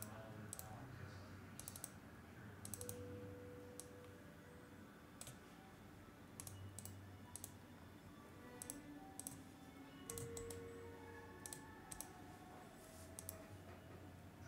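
Faint computer mouse clicks, irregular and often in quick pairs, as menus are opened and options picked in a spreadsheet.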